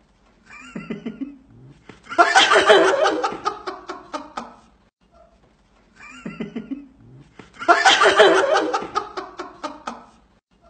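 A laughter sound effect heard twice in the same shape: a short run of chuckles, then a loud burst of laughter that falls in pitch.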